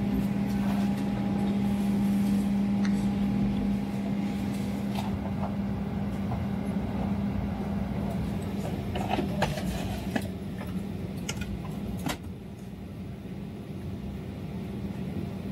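Steady hum and air rush inside a parked Boeing 737 cabin during boarding, with scattered light clicks and knocks. The overall sound becomes quieter about twelve seconds in.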